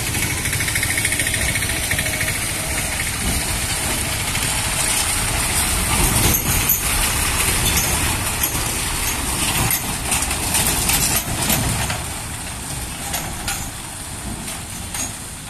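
Heavy lorry's diesel engine running as it drives slowly past through muddy, water-filled potholes, with its tyres in the water. It is loudest as it passes close by and fades as it moves away near the end.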